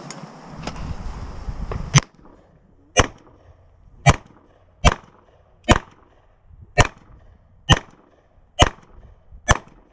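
Semi-automatic pistol fired nine times at a steady, deliberate pace of about one shot a second, beginning about two seconds in.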